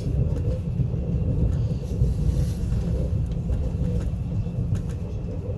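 Running noise of an ES2G Lastochka (Siemens Desiro RUS) electric train heard from inside a passenger car while under way: a steady low rumble with a faint steady whine and a few light clicks.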